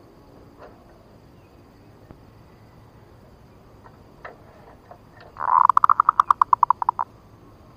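Zebra dove (perkutut) call: one opening note, then a fast run of about a dozen pulsed coos lasting about a second and a half, near the end. A few faint taps come before it.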